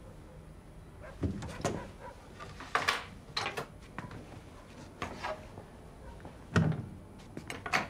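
Kitchen handling sounds at an open fridge: a series of separate knocks and clinks as food is taken out and a plate and knife are set on the counter, the heaviest a low thump near the end.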